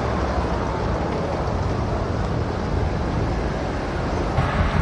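Helicopter rotor and engine noise: a steady low rumble.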